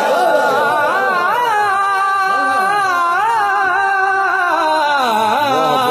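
Naat singing: a voice holds a long, wavering melodic line without clear words.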